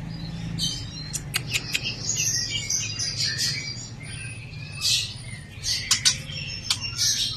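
Young white-rumped shama (murai batu) giving short high chirps and sharp clicking calls at irregular intervals.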